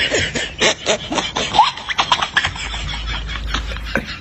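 A hand mixing rice and dal on a steel plate, making a quick run of wet clicks and scrapes. A low hum comes in about halfway.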